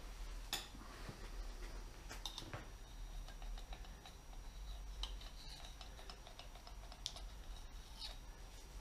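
Scattered light clicks and small metal clinks as the bearing shells of a Rolls-Royce Merlin XX connecting rod are oiled: a hand pump oil can being worked while the steel rod and its bearing cap are handled.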